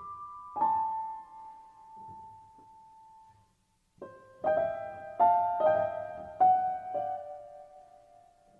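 Slow piano music, single notes and chords struck and left to ring and fade. A short pause about three and a half seconds in, then a run of struck chords.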